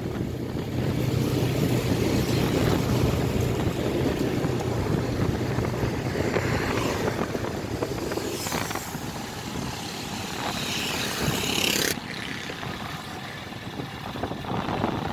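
Motorcycle engine running and wind rushing past while riding along a road. The sound drops and changes abruptly about twelve seconds in.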